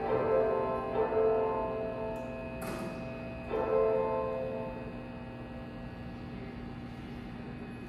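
Station departure melody chiming over the platform speakers, fading out about halfway through and leaving a steady low hum. A short hiss sounds about three seconds in.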